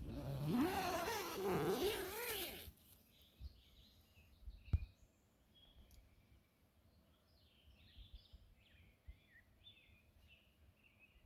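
A loud, wavering pitched sound over a hiss for the first two and a half seconds, a single sharp knock about five seconds in, then faint scattered chirps of small birds.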